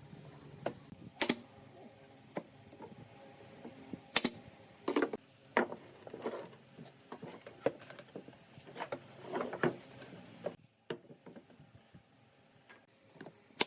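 Irregular light knocks and clicks of pallet boards and hand tools being handled and set down, with short runs of fast high ticking at the start and about three seconds in.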